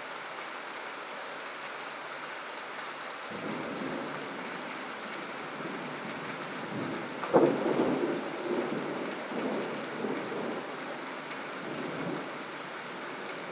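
Steady rain with thunder: a low rumble builds about three seconds in, a sharp crack comes about halfway through, and the thunder then rolls on in several waves before fading.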